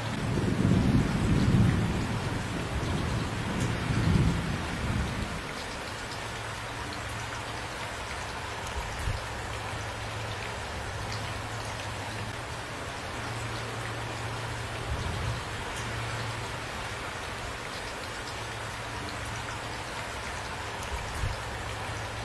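Steady rain falling, with a low rumble of thunder rolling through the first five seconds or so and swelling twice before it dies away.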